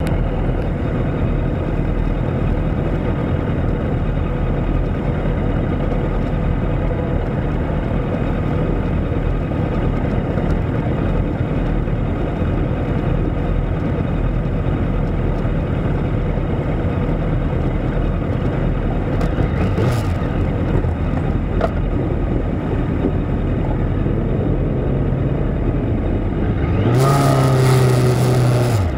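Motorcycle engine idling steadily, with other bikes running nearby. Near the end the revs rise as the bike pulls away.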